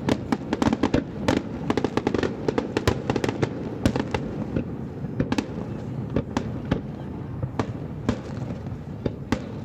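Fireworks display: shells bursting in rapid, dense volleys of bangs and crackles for about the first four seconds, then thinning to scattered single bangs.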